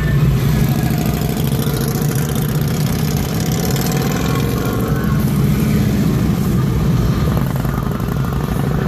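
Harley-Davidson touring motorcycles' V-twin engines idling with a steady low rumble, the pitch rising for a moment around the middle as an engine revs.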